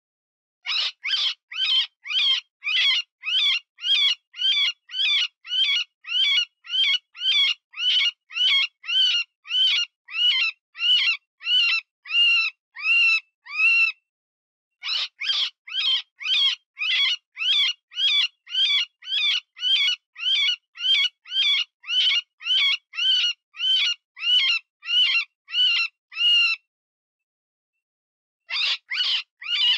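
Cottontail rabbit distress call: shrill, wavering squealing cries repeated about two a second in long runs, broken by short pauses about halfway through and near the end. The squeals imitate a wounded rabbit, used as a lure to call in predators such as coyotes and foxes.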